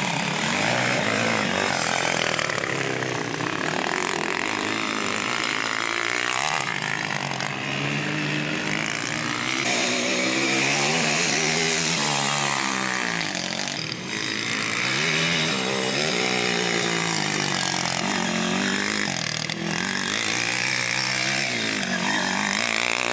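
Sport quad (ATV) engine being ridden hard on a dirt course, its pitch climbing and dropping over and over as the throttle is opened and shut through the corners.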